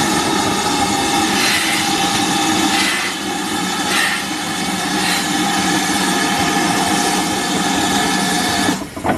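GWR 5101-class 'Large Prairie' 2-6-2 tank locomotive No. 5199 venting steam: a loud, steady hiss with a few steady tones running through it, cutting off abruptly near the end.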